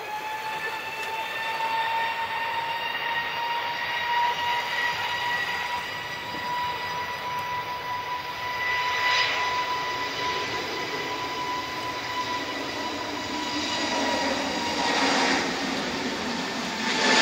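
Turbofan engines of a twin-engine jet airliner spooled up for the takeoff roll: a high steady whine over a broad roar.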